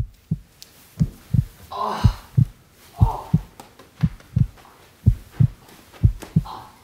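Heartbeat sound effect: a low double thump, lub-dub, repeating about once a second.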